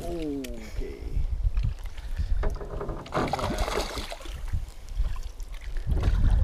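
A hooked smallmouth bass splashing and thrashing at the surface beside a small boat, with wind rumbling on the microphone. A short falling vocal sound right at the start.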